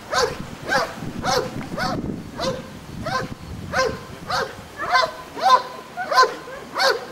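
A KNPV-trained security dog barking hard and steadily at a helper in a bite suit, a dozen or so short barks about one every half second, each rising then falling in pitch: the sustained guarding bark of protection work.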